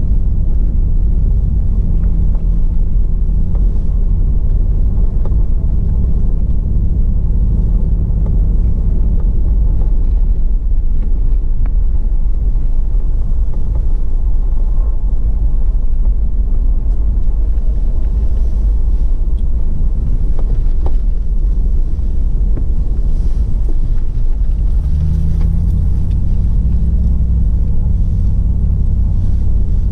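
Toyota 4Runner V8 engine running while the truck drives, a loud steady low rumble. The engine hum weakens into a rougher rumble about ten seconds in and comes back strongly about 25 seconds in, with a few faint knocks along the way.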